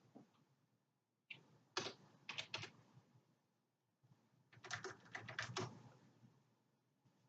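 Faint computer keyboard typing: two short runs of key clicks, the second a little over a second after the first ends.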